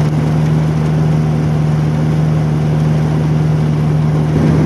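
John Deere D105 riding mower's engine running at high throttle with its mower blades engaged and spinning: a steady hum of one unchanging pitch.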